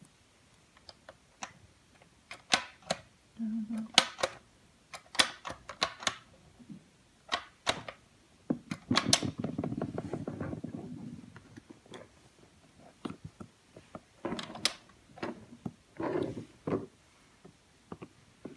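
Irregular plastic clicks and taps from the Orbeez Crush toy dispenser, with hydrated Orbeez water beads dropping into a plastic cup. About nine seconds in, a denser clatter lasts about two seconds.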